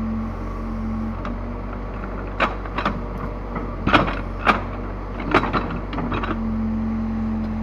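Case 580L backhoe loader's diesel engine running steadily. A higher steady whine comes in near the start and again over the last second or so. In between, half a dozen sharp knocks and clanks sound from the digging gear.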